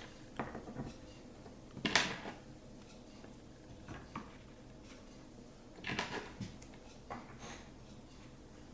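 Pre-cut wooden bat box parts being handled on a workbench: a few scattered wooden knocks and clicks, the sharpest about two seconds in and another small cluster around six seconds, with quiet room tone between.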